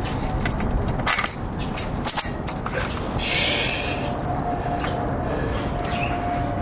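Light metallic clicks and knocks from hands and tools working the chrome exhaust header pipe into the cylinder head of a Kawasaki W650, with a brief scraping hiss about three seconds in.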